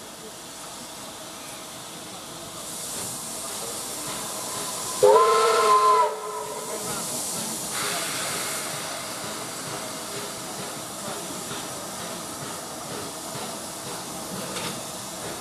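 Steam locomotive giving one short whistle blast of about a second, a chord of several tones that cuts off sharply, over a steady hiss of escaping steam. The hiss grows louder afterwards as the engine blows steam from its chimney, getting ready to start away with its passenger train.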